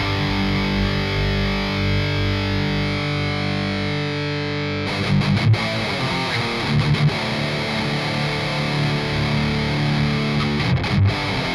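Distorted high-gain metal electric guitar played through the Amped Roots amp sim, with SM57 and Lewitt Vintage 30 cabinet impulse responses blended together. A chord rings out for about five seconds, then a new chord is struck and a riff of shorter chords follows.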